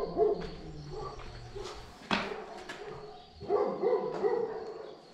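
A dog barking: a couple of barks at the start, then a quick run of about four barks a little past halfway. A single sharp knock comes about two seconds in.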